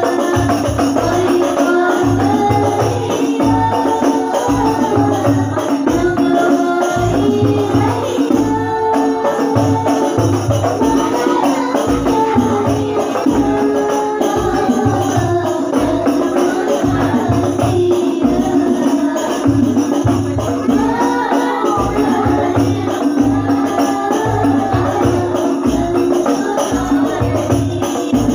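Al-Banjari shalawat: women's voices singing a devotional Islamic song through microphones over a steady, fast rhythm of hand-struck frame drums (rebana/terbang). The singing and drumming run without a pause.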